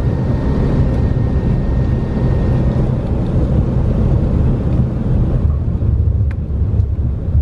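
Douglas DC-3's Pratt & Whitney R-1830 radial engine running at low power while the aircraft taxis, heard from inside the cabin beside the engine as a steady, loud, deep rumble. The higher hiss thins out about two-thirds of the way through.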